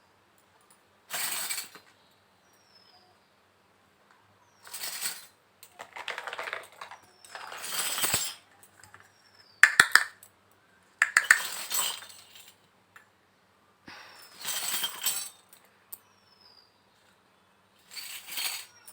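Small toy kitchen pieces and their packaging handled in separate rustling bursts, with a few sharp clicks and clinks of small hard pieces.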